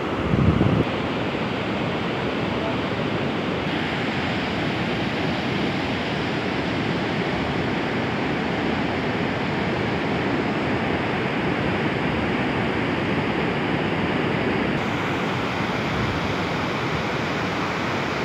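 Steady wash of surf breaking on a sandy beach, with a brief low rumble about half a second in.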